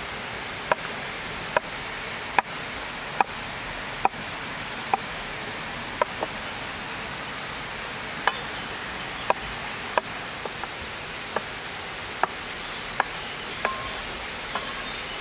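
Broad cleaver-style chef's knife chopping boletus mushrooms on a wooden cutting board: about seventeen sharp knocks of the blade hitting the board, roughly one a second with a short pause midway, over a steady hiss.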